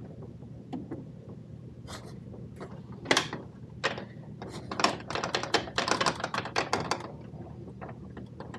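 Nylon cable ties being pulled tight through their ratchets: a few separate clicks, then a long run of quick clicking about five to seven seconds in, over a steady low hum.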